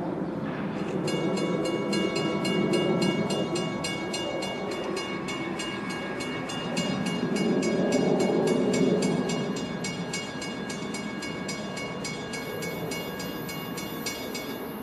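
Railroad grade-crossing warning bell ringing in a rapid, even beat, about four strikes a second, starting about a second in: the crossing has just activated for an approaching train. A low rumble rises and falls twice beneath it.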